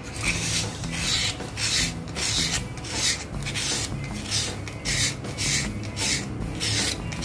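Fine wet sandpaper rasping along the cutting edge of a pet grooming scissor blade in short one-way strokes, about two a second, honing a dull edge sharp again.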